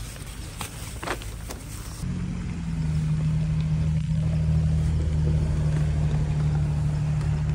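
Plastic bag rustling with a few sharp crinkles and clicks. About two seconds in, a steady low engine hum takes over and stays the loudest sound.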